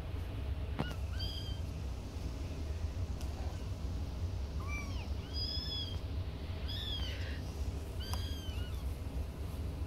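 Young kittens mewing: about six short, high-pitched, arched cries a second or two apart, over a steady low hum. They are crying to be let out of their box.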